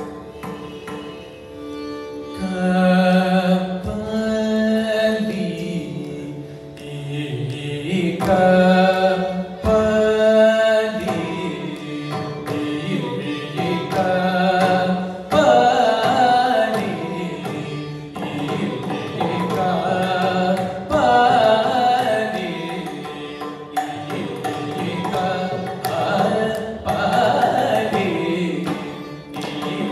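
Male Carnatic vocalist singing in Mohana raga, shadowed by a violin, with mridangam strokes keeping the Adi tala rhythm. The voice comes in about two and a half seconds in, over a steady drone.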